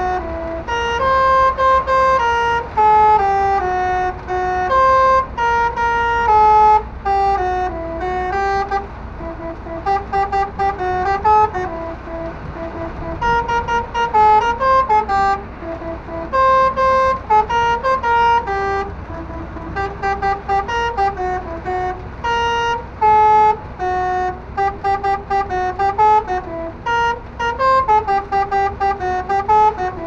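Truck telolet air horn, a six-trumpet Basuri set driven by an Indonesian telolet module, playing a tune of short stepped notes that rise and fall in quick succession, with a low engine and road rumble underneath.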